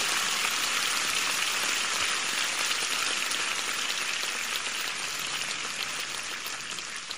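A steady, finely crackling hiss like falling rain, fading slightly.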